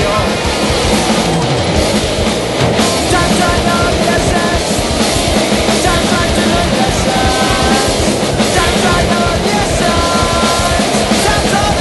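Loud rock music with a drum kit.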